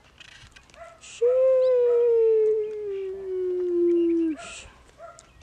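A dog howling: one long call of about three seconds, starting about a second in and sliding slowly down in pitch.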